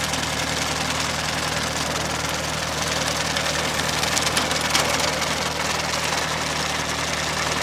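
A John Deere 1025R subcompact tractor's diesel engine running steadily under load while its Maschio sickle bar mower cuts tall grass and brush, a steady engine hum with a dense mechanical rattle over it.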